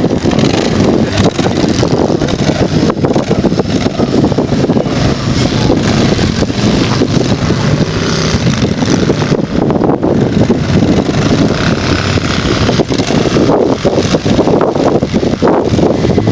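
Off-road buggy engines running steadily as the vehicles crawl over rough ground, with frequent short knocks and rattles from the jolting ride and some wind on the microphone.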